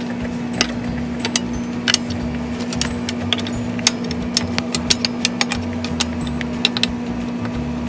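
A steady mechanical hum at one pitch over a low rumble, with scattered light clicks and taps.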